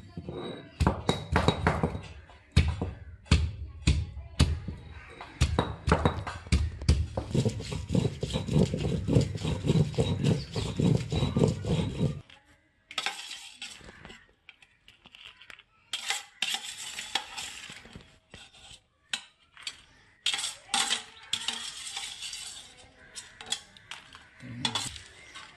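A stone roller rolled back and forth over a flat stone grinding slab, a rough grinding with many knocks, which stops abruptly about halfway through. After that come sparser knocks, scrapes and clinks of a steel spoon and plate as ingredients are tipped onto the stone.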